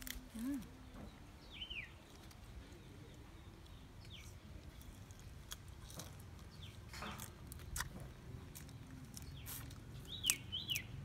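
Fibrous plant stalk being peeled and bitten, making a few scattered soft cracks and snaps, with several short high chirps that fall in pitch, the last two close together near the end.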